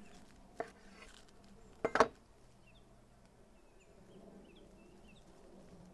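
Light clicks of utensils against a bowl, a faint one about half a second in and a sharper double knock about two seconds in, over faint, high, short chirps in the background.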